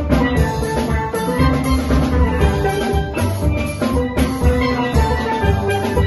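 A steel band playing a Christmas medley: chrome steel pans ring out the melody over yellow bass pans, with a drum kit and cymbals keeping a steady beat.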